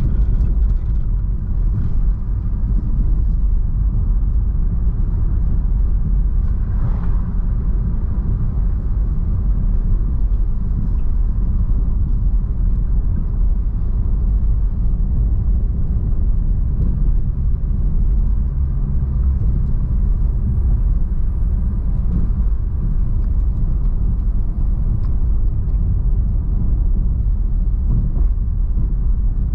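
Car driving along a paved road: a steady low rumble of tyres and engine that keeps an even level throughout.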